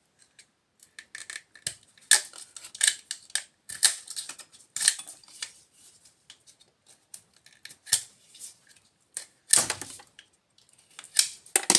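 Irregular sharp clicks, snips and metallic scraping as copper is stripped out of a small piece of scrap metal by hand.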